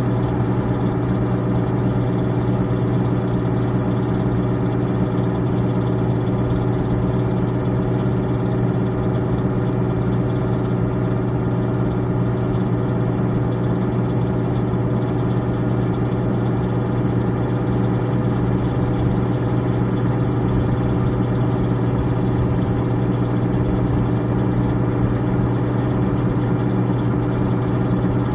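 An engine idling steadily, a low hum holding one even pitch and level.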